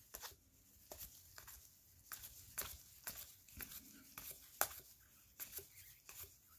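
Trading cards being flipped through one at a time in a gloved hand: a dozen or so faint, irregular clicks and flicks of card stock sliding off the stack.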